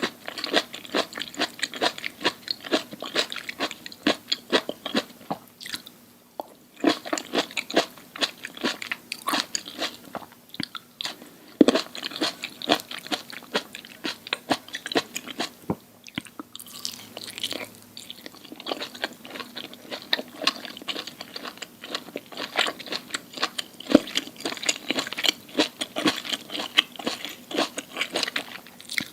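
A person chewing crunchy food close to the microphone: a rapid run of crisp crunches, broken by two short pauses about six and sixteen seconds in.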